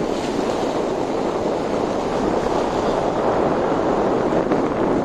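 Steady rushing road noise of a car driving on a wet road: tyre hiss mixed with wind.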